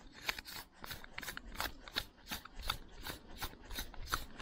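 Daiwa Goldcast 508RL spincast reel clicking steadily as it is worked by hand, about three sharp clicks a second.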